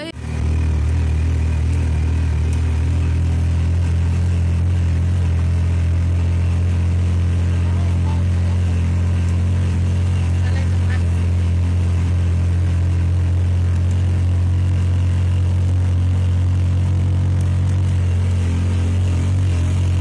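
Auto rickshaw's small engine running at a steady pace, heard from inside the open cab as it drives along: a loud, even low drone.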